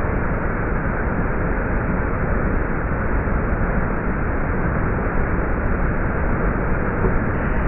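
Turbulent floodwater pouring over a weir: a steady, dull rushing noise with little high end.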